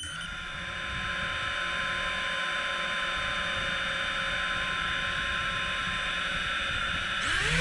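FPV quadcopter's brushless motors spinning at a steady idle whine after arming, then rising in pitch as the throttle comes up near the end.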